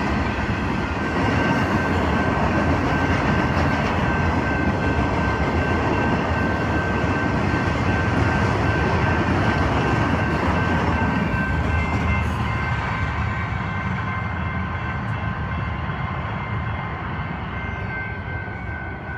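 Intermodal freight train of truck trailers on flatcars rolling past at close range: a steady rumble and rattle of wheels on rail, with a few thin steady high tones over it. The sound eases off over the second half as the train passes.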